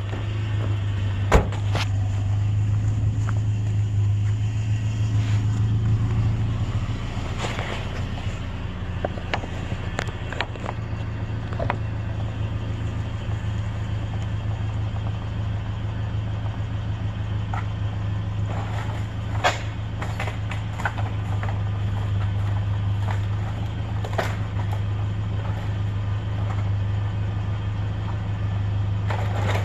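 Truck running with a steady low engine and road drone, with a few short clicks and knocks on top.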